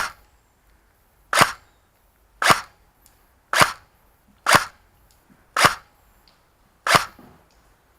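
Airsoft gun firing single shots: about seven sharp cracks, evenly spaced about a second apart.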